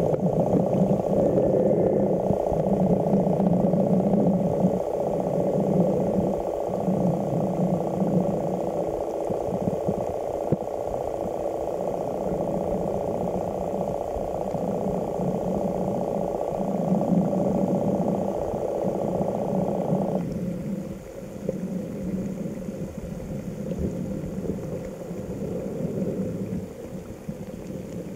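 Steady, muffled underwater rumble picked up by a submerged camera, with a low hum that swells and breaks every second or two. The higher part of the noise drops away about two-thirds of the way through.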